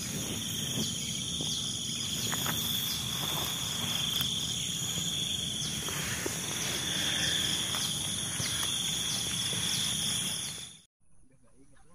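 Steady shrill chorus of insects holding several high pitches at once, with a faint repeating pulse and scattered light clicks and rustles. About eleven seconds in it drops suddenly to a much fainter insect drone.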